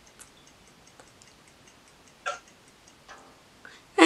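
Faint, rapid, even ticking, several ticks a second. A brief voice sound comes about two seconds in, and talking starts at the very end.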